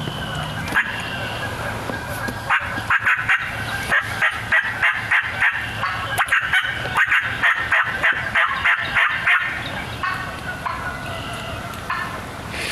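Turkey calling: a long run of quick, sharp, evenly repeated notes, about three to four a second, from about two and a half seconds in to about nine and a half seconds. Fainter calls are heard before and after the run.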